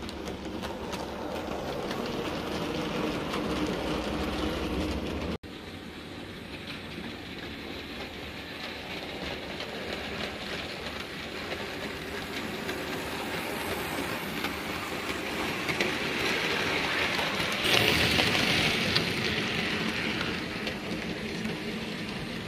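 00 gauge model trains running on a small layout, with the locomotive motors whirring and the wheels clicking over the track. There is a sudden break about five seconds in, and a louder, brighter stretch a little after the middle.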